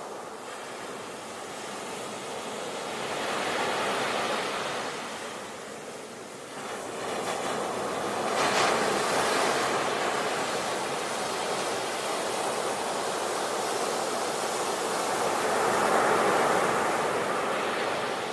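Ocean surf: waves breaking and washing in, the rush of water swelling and ebbing, with three louder surges, the strongest about halfway through.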